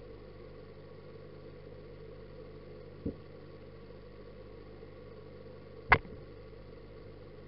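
Steady low hum of an aquarium filter pump, picked up by a sport camera submerged in its waterproof case. A small dull knock comes about three seconds in, and a loud sharp knock against the case just before six seconds, as a large fish bumps right up against the camera.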